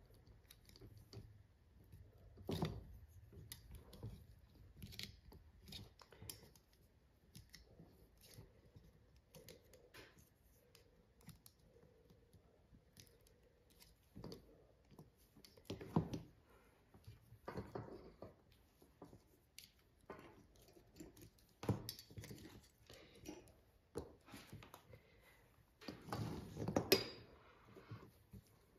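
Hand tools working leather: irregular short snips, scrapes and clicks, with the loudest cluster near the end.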